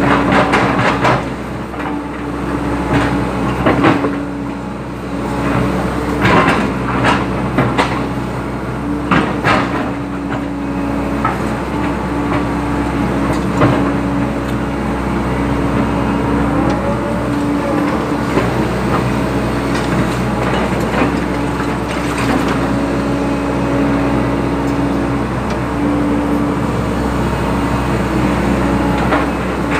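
Hydraulic excavator working: its diesel engine runs steadily under load, with repeated metal clanks and knocks, most frequent in the first ten seconds or so.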